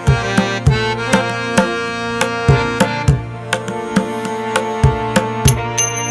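Background music: a steady drum beat, about two to three strokes a second, over sustained melodic tones.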